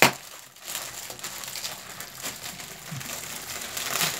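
Plastic snack wrappers crinkling and crackling as they are pulled open and unwrapped by hand, with a sharp crackle at the start and another near the end.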